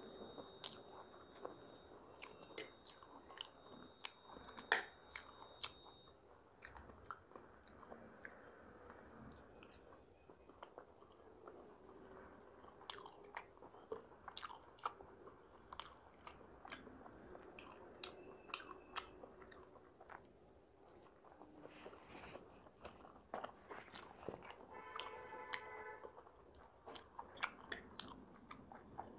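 Close-miked eating sounds: chewing and biting chilli paneer, with many sharp mouth clicks and smacks, and a fork picking at a plate.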